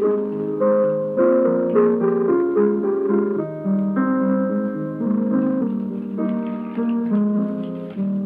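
Background piano music: a melody of held notes and chords with new notes struck every fraction of a second.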